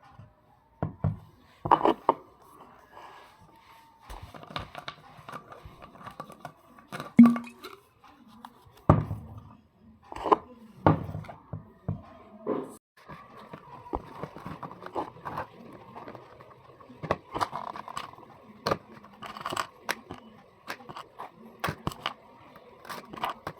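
Parcel packaging being cut open and handled: irregular scissor snips, tearing and rustling, with sharp clicks and knocks of items being handled.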